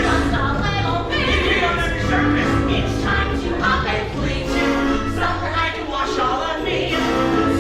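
Singers performing a musical-theatre song with several voices together, over instrumental accompaniment with a steady bass line.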